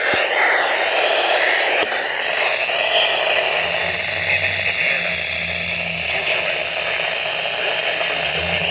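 Weather radio receiver hissing with loud static as the broadcast signal fades out and the announcer's voice is lost in the noise. A low steady engine-like hum joins about three and a half seconds in.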